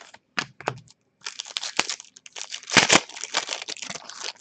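Trading-card packaging being handled: a few sharp clicks, then about three seconds of dense crinkling and rustling, loudest a little before three seconds in.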